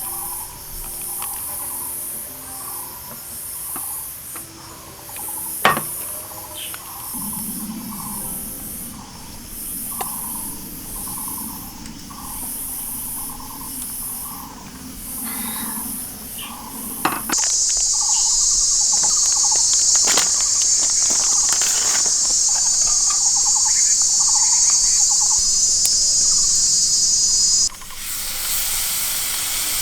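Insects chirping in a steady repeating rhythm. About halfway through, a loud steady hiss starts and covers them, then cuts off suddenly about ten seconds later.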